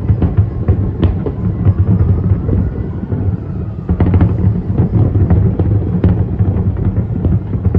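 Fireworks display going off in rapid succession: dense crackling and popping over a continuous low rumble of booms. A faint gliding tone rises and falls about a second in.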